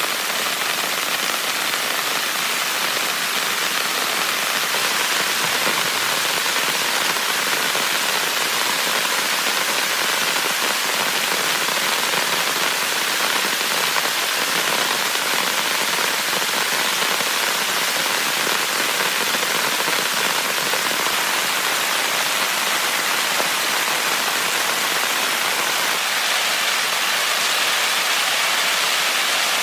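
Heavy rain falling steadily on a tent, an even hiss of drops with no thunder.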